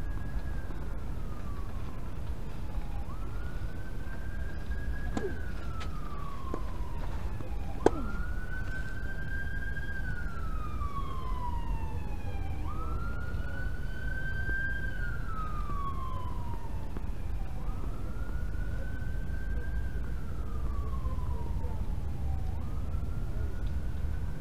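A siren wailing in repeated cycles about every five seconds: each one rises quickly, holds its high pitch, then slides slowly down. A single sharp knock comes about eight seconds in, over a steady low rumble.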